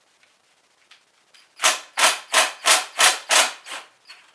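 Impact wrench on a flex-plate bolt, run in short trigger bursts: about seven quick bursts, roughly three a second, starting about a second and a half in, with another just at the end.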